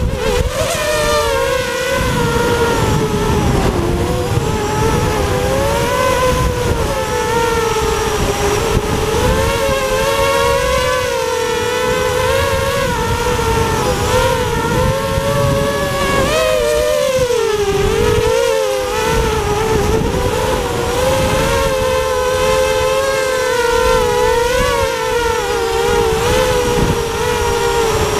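FPV quadcopter's motors and propellers whining steadily, the pitch wavering up and down with throttle and dipping lower for a moment about two-thirds of the way through, over a low rush of wind on the onboard microphone.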